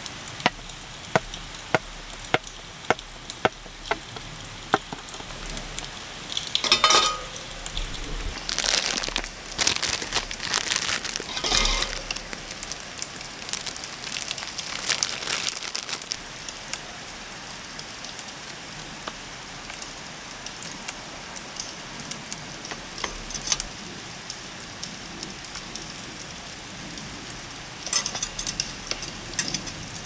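Cellophane wrapper crinkling as a pack of mosquito coils is unwrapped and the coils pulled apart, over steady rain. In the first five seconds, a run of sharp ticks, about two a second.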